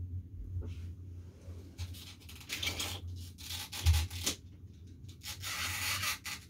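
Rubbing and scraping handling noise, with one dull thump about four seconds in, over a low steady hum.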